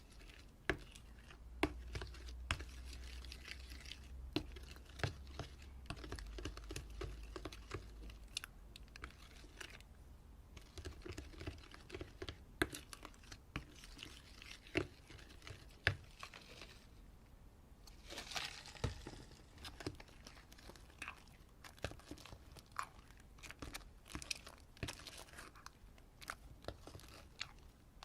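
Slime being squeezed and worked by hand, giving a steady run of irregular small pops, clicks and crackles.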